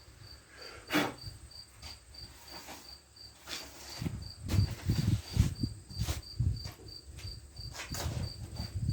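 A cricket chirping steadily, a high pulse repeating evenly about three or four times a second. Over it come scattered sharp clicks and knocks, and a run of low thumps in the middle.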